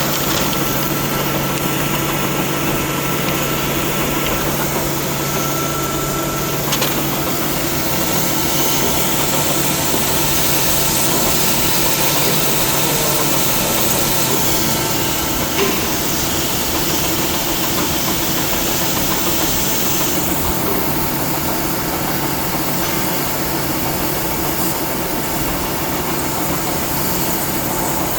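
Shop machinery running steadily: a constant mechanical hum with several steady tones, and a couple of faint clicks.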